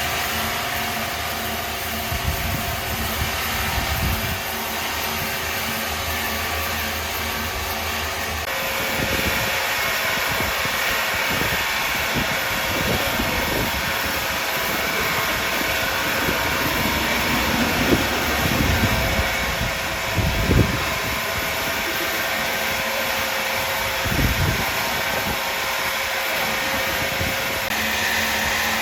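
Large sawmill machinery running steadily, its tone turning brighter about eight seconds in, with a few short low thuds scattered through.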